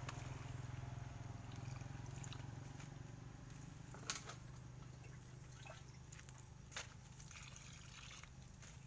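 Small single-cylinder diesel 'dompeng' engine, recently flooded, running with a low steady hum that slowly grows quieter, with two sharp clicks about four and seven seconds in.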